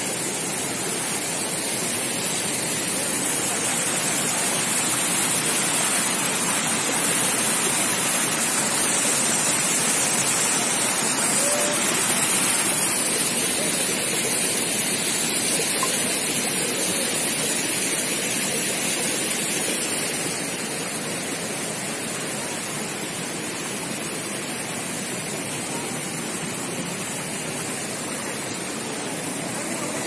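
River water cascading over rock ledges in small falls, a steady rushing that eases a little about two-thirds of the way through.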